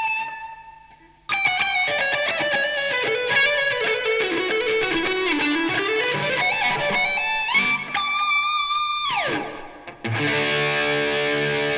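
PRS S2 Studio electric guitar playing solo. A held note dies away, then a fast run of single notes leads into a held high note that slides down in pitch. About ten seconds in, a chord is struck and left ringing.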